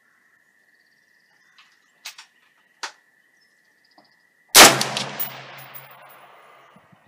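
A single shot from a 6x45 (6mm-223) AR-15 with a 20-inch barrel, fired from a bench rest: one loud sharp crack about four and a half seconds in, with a tail that dies away over about two seconds. It is a load-development shot with a 100-grain Sierra Pro Hunter bullet over Accurate 2200 powder.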